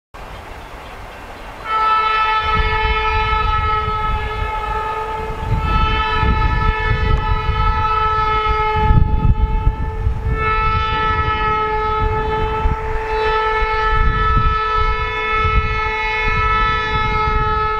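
Diesel freight locomotive's multi-note air horn blowing long blasts for a grade crossing, starting about two seconds in, with brief breaks between blasts. Under the horn is the low rumble of the approaching EMD SD40-2 locomotive and its train.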